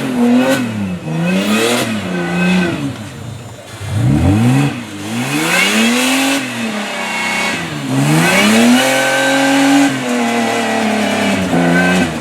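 Modified off-road 4x4 competition truck's engine revving up and down repeatedly under bursts of throttle, with two longer pulls in the middle.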